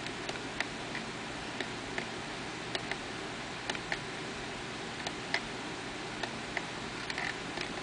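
Small, sharp clicks of the buttons on a FrSky Taranis Plus radio-control transmitter being pressed as its screens are paged through. More than a dozen clicks come at uneven intervals over a steady hiss.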